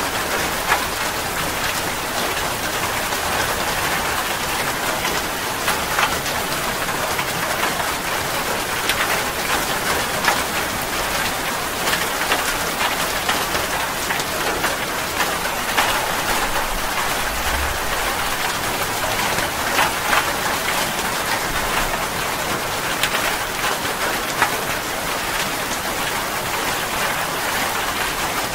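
Steady rain falling, with frequent sharp drop hits standing out.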